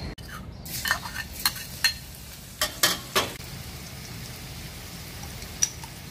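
Minced garlic sizzling steadily in hot oil in a wok, with several sharp clinks and scrapes of a spoon against the wok in the first half as chili paste is added.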